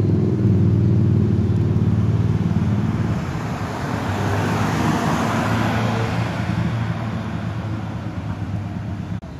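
Street traffic: a vehicle engine runs with a steady low hum close by for the first few seconds. Then the rushing noise of a passing vehicle swells around the middle and fades away.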